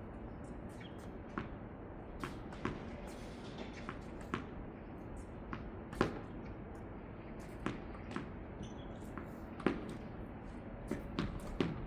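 Tennis balls popping off racket strings and bouncing on a hard court during a doubles rally: sharp, irregularly spaced pops every second or so over steady background noise, the loudest about six seconds in.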